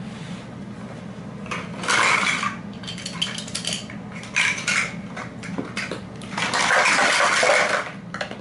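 Irregular clattering of hard objects, in several bursts with sharp clicks between them; the longest burst comes near the end.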